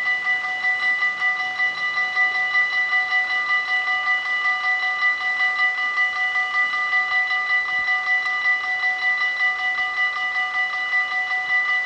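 Dutch level-crossing warning bell ringing continuously with rapid, even strikes of a bright metallic tone while the crossing's red light is lit.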